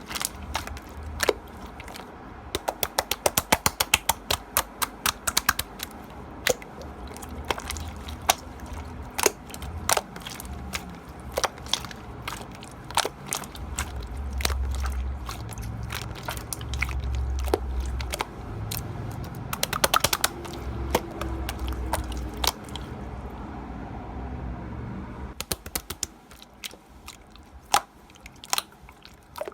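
Slime being pressed and poked by hand, making rapid runs of crackly clicks and pops, with a low rumble of handling about halfway through.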